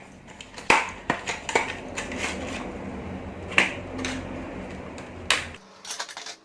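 Sharp clicks and light metallic clinks of computer hardware being handled, about half a dozen of them, as an M.2 NVMe SSD is fitted into a second motherboard slot.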